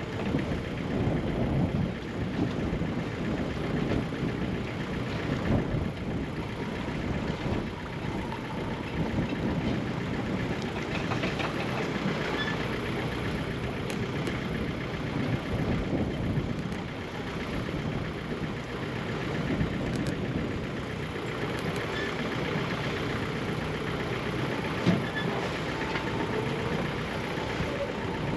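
A sailing yacht's engine running steadily, a continuous low rumble, with one sharp knock near the end.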